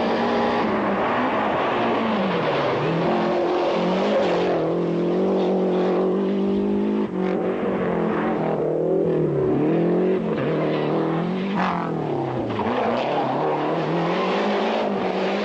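Rally car engine revving hard, its pitch climbing and then dropping again and again as the driver shifts gears or lifts off for corners.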